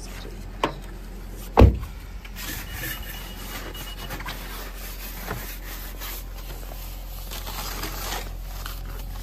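Two knocks in the first two seconds, the second one loud and sharp. Then a snow brush's stiff bristles sweep dry, powdery snow off a car's body and rear window, a steady scratchy rubbing with short strokes.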